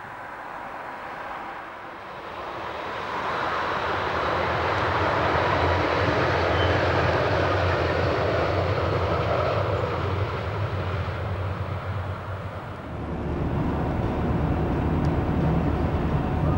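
A passenger train passing at speed, its rushing rumble building over a few seconds and then fading away. About thirteen seconds in it gives way abruptly to the steady low hum of a car's engine and road noise heard inside the car.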